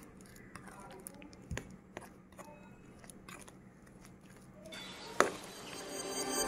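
A spoon stirring mashed banana into flour in a bowl, making a few soft scrapes and light clicking knocks against the bowl. Music fades in near the end.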